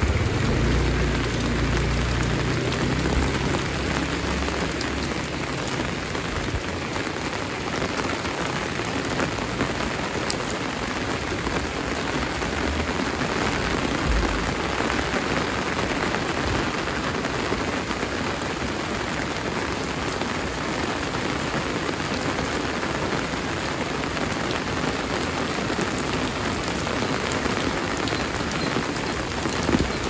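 Heavy rain falling steadily, a dense even hiss of drops on surfaces. A low rumble fades out over the first few seconds.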